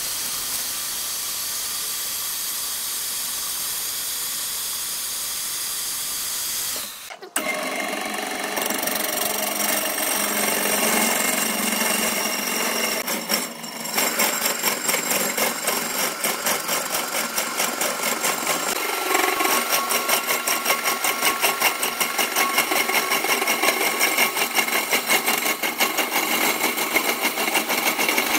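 Woodturning work on a large wood lathe: a steady hiss for the first third, then after abrupt cuts a fast, even rattle of machine and tool noise.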